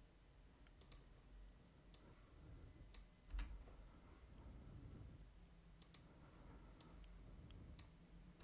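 Faint clicks of a computer mouse and keyboard during 3D modelling work, about one a second, some in quick pairs, with one soft low thump a little before the middle.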